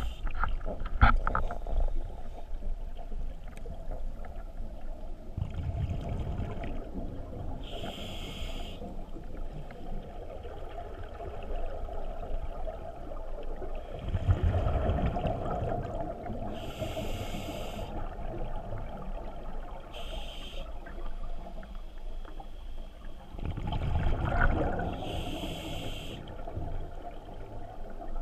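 Scuba diver's regulator breathing heard underwater: short hissing inhalations and low rumbling bursts of exhaled bubbles, about three breaths in slow cycle.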